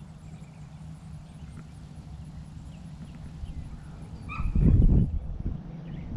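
A sheep bleats once, briefly, about four seconds in, over a steady low hum. A loud low rumble follows straight after the bleat and lasts about half a second.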